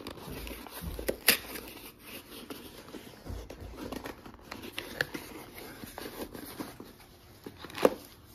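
Cardboard box and packaging being handled, with rustling and a few sharp knocks; the loudest knock comes near the end.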